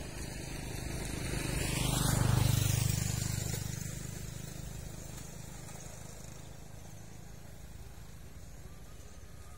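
A road vehicle passes close by with engine hum and tyre rush. It grows louder to a peak about two seconds in, then fades away over the next few seconds.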